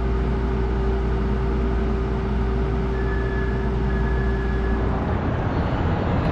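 City street traffic: a steady low engine rumble with a held hum, which stops about five seconds in and leaves a wider wash of traffic noise.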